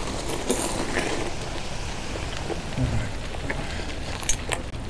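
Bicycle rolling along a dirt path: steady rolling noise with a low rumble, and a few sharp rattles, two close together near the end.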